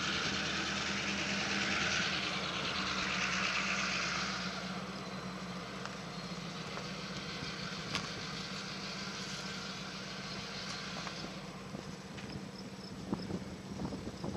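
A motor vehicle's steady low engine hum, with a rushing hiss that is loudest for the first four seconds or so and then fades away.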